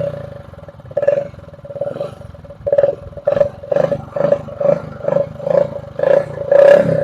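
Hero Passion Pro single-cylinder motorcycle exhaust with a drink can held behind the silencer, revved in a string of quick throttle blips, about two a second in the second half. The can gives the exhaust a deeper, thicker note, meant to sound like a KTM.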